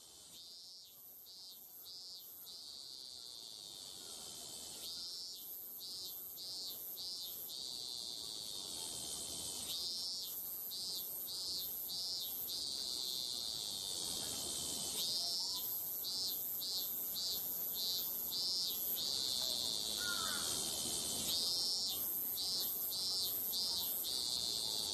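Insects chirping: a steady high buzz broken every few seconds by a group of three to five quick chirps, fading in at the start.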